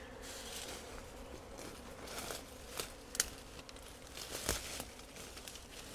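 Faint rustling and crackling with a few light clicks, as a gloved hand works through honeycomb covered in bees.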